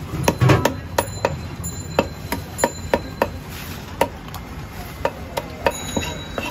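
A run of sharp knocks and clicks, irregular at about two or three a second, from a fish cutter's knife striking a wooden chopping block. A few of the knocks carry a short metallic ring.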